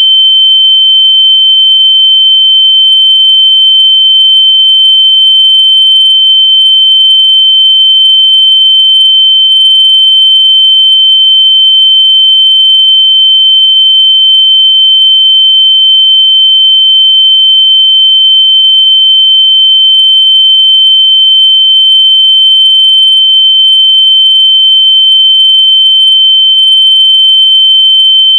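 Loud, continuous high-pitched electronic sine tone, held at one steady pitch without a break: a locator sound meant to be played through lost AirPods so they can be found by ear.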